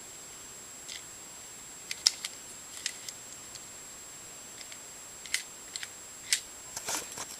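Light, irregular clicks and taps of a 35mm SLR lens being handled and worked by hand, about a dozen small sharp clicks spread through the stretch.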